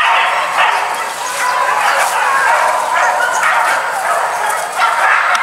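Hunting dogs yelping and baying without a break, several voices overlapping, as they give tongue while chasing game.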